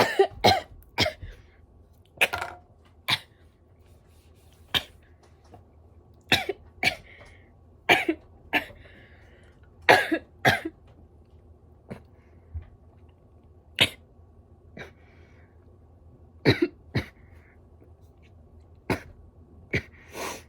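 A woman coughing hard and repeatedly, single coughs and pairs a second or two apart with short breaths between: a coughing fit from a deep vape hit that she says went to the bottom of her lungs.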